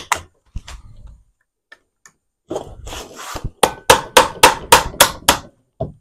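A hammer driving a short screwdriver against a pool pump motor to knock its press-fit rear cooling fan off the shaft. A second of scraping comes first, then a quick run of about eight sharp metal taps, about four a second.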